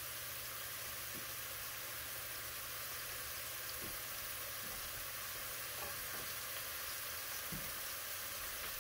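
Diced chicken in a skillet and chopped onions and celery in a pot sizzling steadily in melted butter, with a faint tick now and then.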